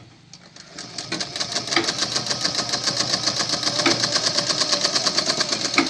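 Domestic sewing machine stitching through layers of fabric: it starts about a second in, picks up speed to a fast, even rattle of about ten stitches a second, and slows to a stop near the end.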